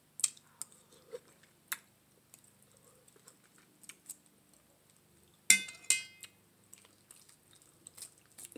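Close-miked eating sounds: small wet mouth clicks and chewing of curried neck bones. About five and a half seconds in, a fork clinks against the stainless-steel bowl and rings briefly.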